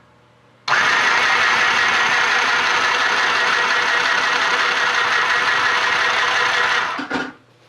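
Mini portable sewing machine running under its foot switch: a steady, rapid whirring of the small motor and needle mechanism that starts abruptly under a second in and stops abruptly about six seconds later.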